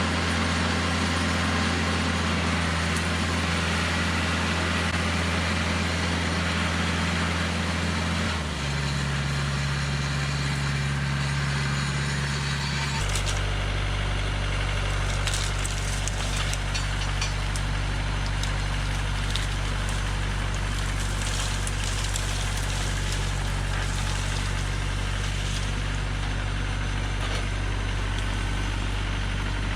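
Mahindra diesel tractor engine running steadily. Its engine speed shifts to a new pitch about eight seconds in and again about thirteen seconds in, with light clattering over it in the second half.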